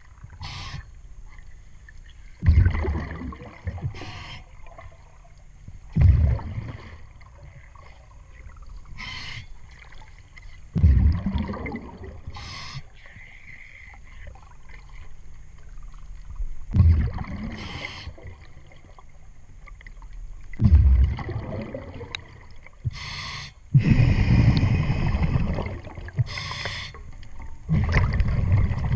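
A scuba diver breathing through a regulator, heard underwater: a short hiss on each inhalation, then a loud burst of exhaled bubbles rumbling past the mask, repeating about every four seconds.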